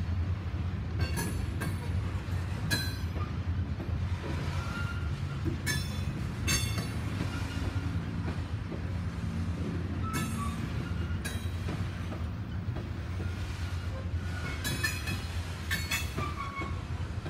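Norfolk Southern freight train of covered hopper cars rolling past: a steady low rumble of steel wheels on rail, broken by repeated sharp clanks as the wheels cross rail joints and a few brief high wheel squeals.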